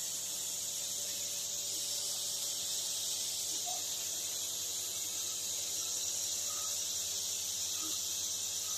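A steady high-pitched hiss with a faint low hum beneath it, unchanging throughout.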